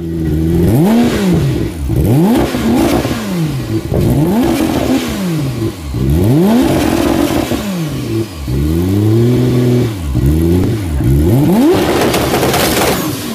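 Porsche engine revved repeatedly in quick blips, the pitch climbing and falling back about eight times.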